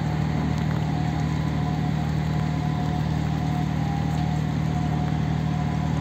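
Ship's diesel machinery running with a steady, even low hum.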